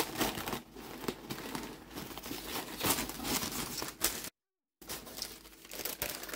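Paper and packaging rustling and crinkling in irregular scrapes as items are handled, with a half-second break of complete silence about four seconds in.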